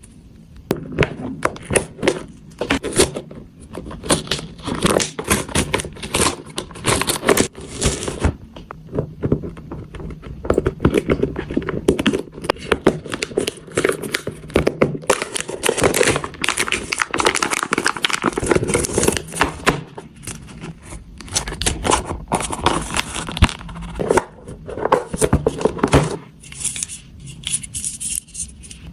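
Toy packaging being torn open and crinkled by hand. The rustling and crackling is irregular, with many sharp clicks and small knocks.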